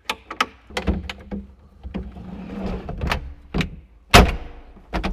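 The top front window of a John Deere 35G mini excavator's cab being pulled down along its rails and shut: a run of clicks and rattles, then a heavy thunk about four seconds in as it closes, followed by a couple more knocks.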